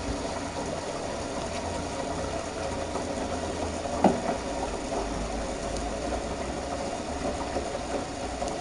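A steady low mechanical hum throughout, with one sharp click about four seconds in, fitting a nail clipper snipping a kitten's claw.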